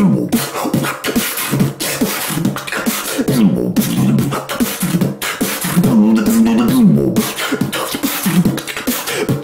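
Human beatboxing in dubstep style: mouth-made wobble bass that swoops up and down in pitch, over sharp snare- and hi-hat-like mouth hits.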